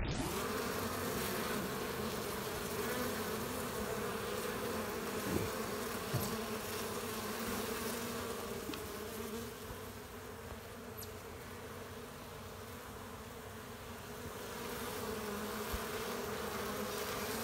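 Many honeybees buzzing together at a crowded hive entrance, a steady hum that eases off a little in the middle and comes back toward the end. This is the sound of heavy early-spring flight activity at the hive.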